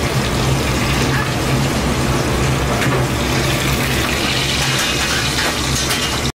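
Steady kitchen noise at a street-food stall: an even rushing hiss with a low hum underneath.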